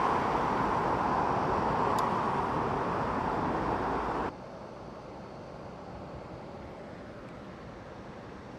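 Steady rushing of flowing river water. About four seconds in it drops suddenly to a quieter, softer rush.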